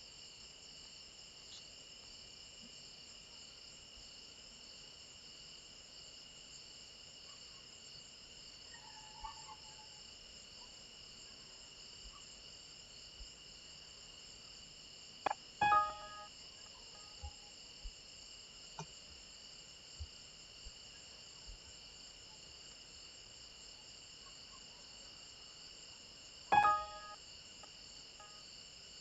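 Crickets chirring steadily in the background, with a few faint clicks scattered through the middle and two short, louder pitched blips, one about halfway and one near the end.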